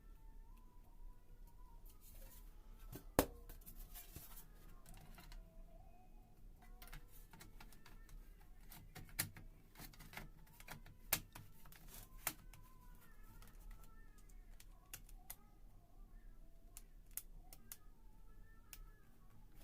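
Scattered light clicks and taps of laptop parts being fitted back together during reassembly, the sharpest about three seconds in.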